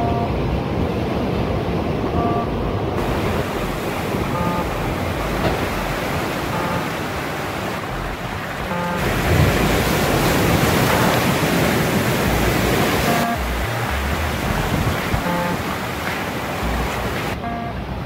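Ocean waves breaking and seawater rushing over rocks, with wind on the microphone. The rush of water grows louder about nine seconds in and eases off about four seconds later.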